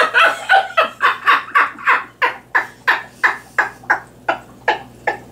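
A person laughing hard in a long run of rhythmic 'ha-ha' bursts, about three a second, loudest at the start and tapering slightly.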